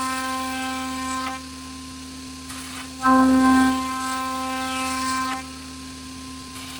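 CNC router spindle with a 6 mm flat end mill cutting poplar plywood: a steady high whine that gets louder twice, for about two seconds each time, as the bit bites into the cut.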